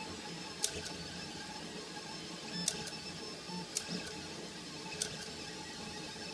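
Delta 3D printer running mid-print: a steady hum with a faint whine of its stepper motors, broken by four sharp clicks spread through the run.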